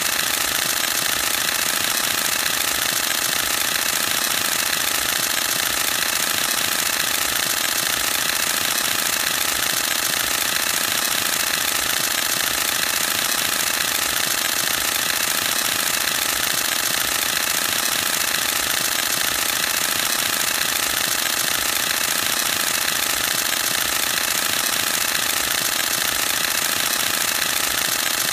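Canon EOS-1D X Mark II firing a continuous high-speed burst: its mirror and shutter clatter in a rapid, unbroken machine-gun-like rattle at an even level.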